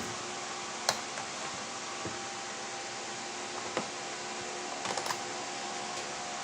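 A few light, sharp clicks and taps from the plastic carburetor cover of a chainsaw being worked loose and lifted off, over a steady background hiss.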